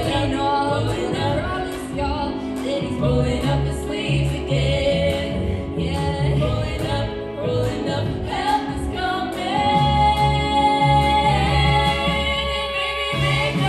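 Three female voices singing together in harmony into microphones, over a steady pulsing bass.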